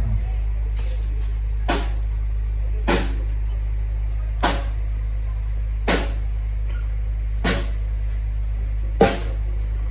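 Ramayana Audio sound system of about 8,000 watts being sound-checked: a steady deep bass hum with single sharp hits about every one and a half seconds.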